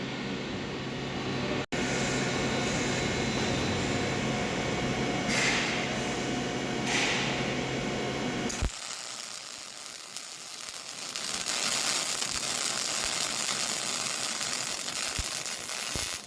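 Robot-driven Miller 252 MIG welder arc crackling steadily with a low hum for about nine seconds, set at 19 volts and 310 wire speed. It stops with a click, followed by a steady hiss until near the end.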